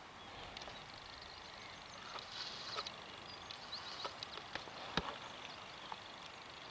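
Quiet open-air countryside ambience with a faint hiss, a few faint high chirps and several soft sharp clicks scattered through.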